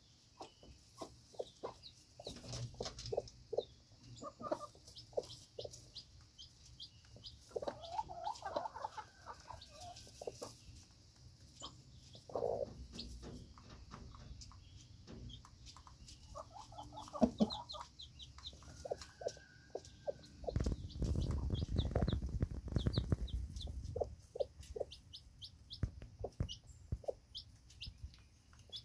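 Mother hen clucking in short, repeated clucks while her day-old chick peeps in many short, high, falling chirps. The chick's peeps come thickest near the end. A few seconds of low rumbling noise come about two-thirds of the way through.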